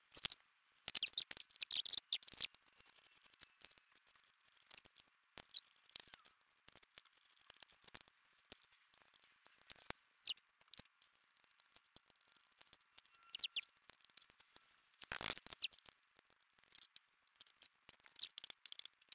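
Scattered light clicks, taps and scratches of wooden chair parts being handled and fitted by hand, with a louder cluster about fifteen seconds in.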